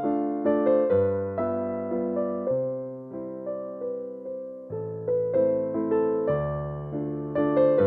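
Background music on piano: a slow run of notes that ring and fade, over held low bass notes.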